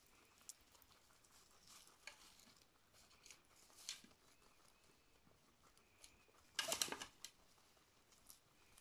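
Lionhead rabbit chewing and rustling fresh grass: faint, scattered crisp crunches, with a louder burst of crunching about two-thirds of the way through.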